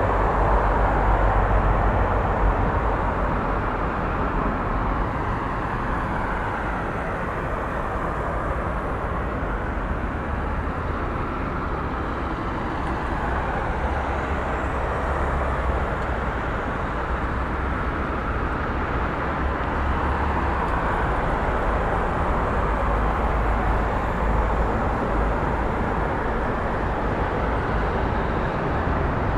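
Continuous city traffic noise: a steady wash of passing cars and engines with a deep low rumble, swelling a little at the start and again near the end.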